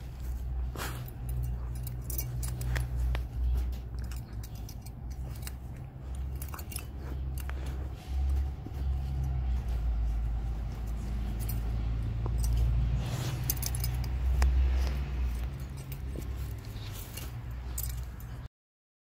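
Jindo dog chewing and tugging at a large plush fish toy: rustling and scattered clicks, with metallic jingling from its collar, over a steady low rumble on the microphone. The sound cuts off suddenly near the end.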